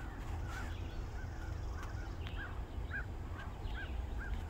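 A bird calling a rapid series of short, identical notes, about two to three a second, over a steady low rumble.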